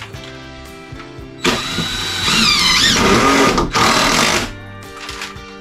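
Cordless drill driving screws into wooden framing, in two runs lasting about three seconds together. Its motor whine bends in pitch as it loads. Background music plays throughout.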